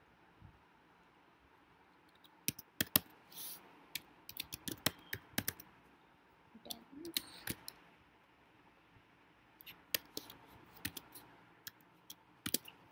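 Computer keyboard typing: clusters of quick keystrokes with pauses between them, the longest run about two to five seconds in and another near the end.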